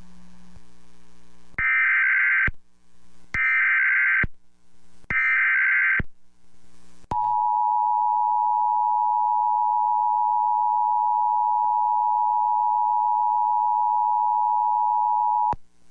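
Emergency Alert System tones relayed over a radio station: three short bursts of SAME digital data tones, then the two-tone EAS attention signal, a steady dual-pitched tone held for about eight seconds that cuts off sharply. Together they announce a National Weather Service severe thunderstorm warning.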